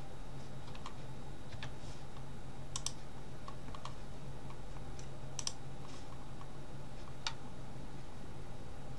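Computer mouse and keyboard clicks, scattered about one a second, some in quick pairs, over a steady low hum.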